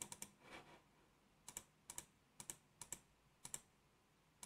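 Faint clicking of computer keyboard keys, in quick pairs roughly every half second after a short pause near the start.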